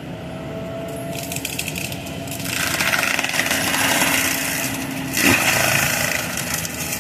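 Fecon forestry mulcher head running on its carrier machine, its drum chewing into brush and small trees. A dense crackling and grinding begins about a second in and grows louder a little later over the steady engine, with a sharp knock a little past five seconds.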